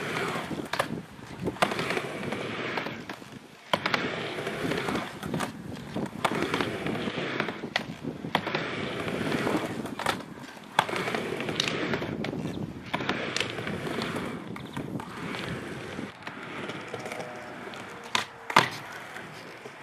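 Skateboard rolling back and forth on a metal quarter pipe, a continuous wheel rumble broken by sharp clacks of the board striking the ramp; the loudest clack comes near the end.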